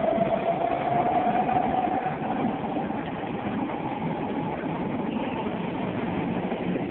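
First-generation Athens Metro train pulling out of the station: a rising whine from its electric drive over a steady rumble of wheels on rails. The whine fades after about three seconds as the train goes into the tunnel, and a lower rumble carries on.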